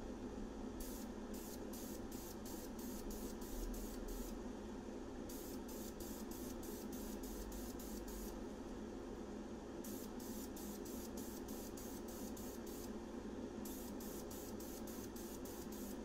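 Aerosol can of Krylon Fusion spray paint hissing in short, quick bursts, about three a second, in four runs of about three seconds each with brief pauses between. This is the fourth and final coat going onto an AR-15 pistol grip. A steady low hum runs underneath.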